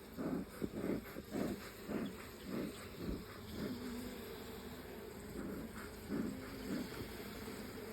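Honeybees buzzing around an open hive. The buzzing swells and fades several times in the first few seconds as bees fly close past, then settles into a steadier hum.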